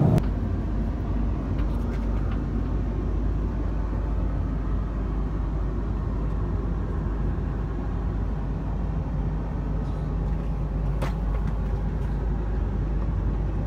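Steady in-flight cabin noise of an Airbus A330-300 at cruise: an even low drone of engines and rushing air, with one faint click about eleven seconds in.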